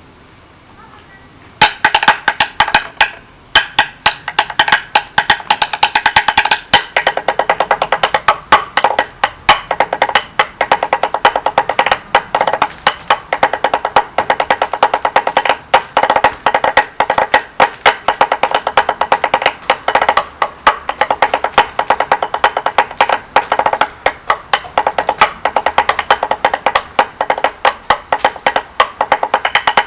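Wood blocks drummed in a fast, steady funky rhythm of sharp knocks, which starts abruptly about two seconds in.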